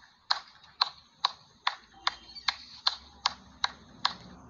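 One person clapping slowly and steadily, about two and a half claps a second, stopping about four seconds in.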